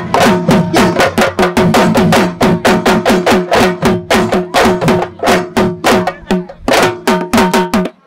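Sabar drums played fast and loud in a dense rhythm, about five sharp strokes a second, the deeper strokes dropping slightly in pitch.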